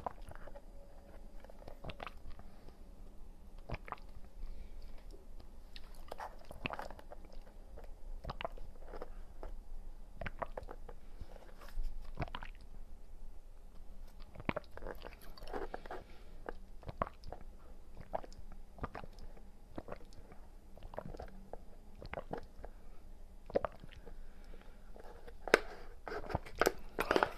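Close-miked mouth sounds of drinking mango pomelo sago through a wide straw: sips, with chewing of the sago and fruit bits, heard as irregular small wet clicks. They grow louder and come thicker near the end.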